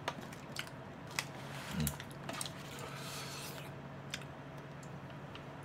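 Quiet handling noise: small scattered clicks and taps as a corded webcam is picked up and moved over a takeout food container, over a low steady hum. A brief low murmur of voice comes about two seconds in.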